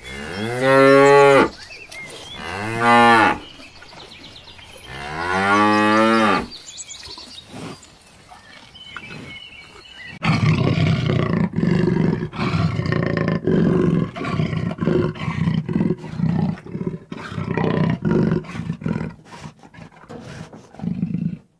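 Zebu cattle mooing: three long calls in the first seven seconds, each rising and then falling in pitch. About ten seconds in, a different, rough, lower sound with many clicks starts and runs until just before the end.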